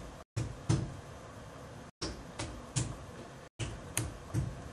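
Hammer blows on a lump of clay, drawing it out square: about eight dull knocks in uneven groups of two and three.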